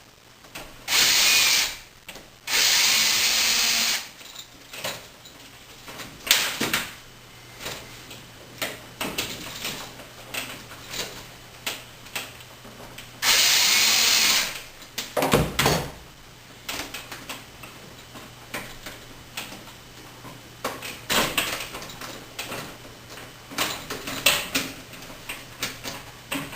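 Power drill driving screws in short bursts: three runs, the longest about a second and a half, with clicks and knocks of the wires and outlet being handled in between.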